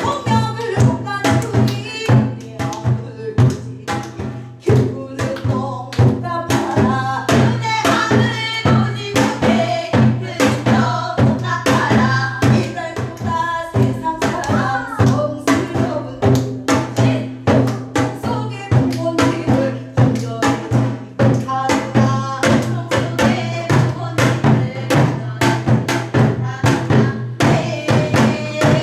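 Women singing a Korean traditional-style song together over a recorded backing track with a steady drum beat and a low bass line, played through loudspeakers.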